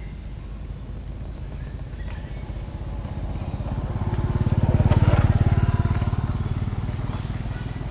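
A motor vehicle engine passing by, growing louder to a peak about five seconds in and then fading away.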